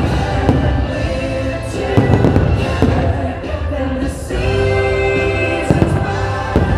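Fireworks bursting overhead in a string of sharp bangs, with a cluster about two seconds in and more near the end, over the fireworks show's Christmas music soundtrack with singing.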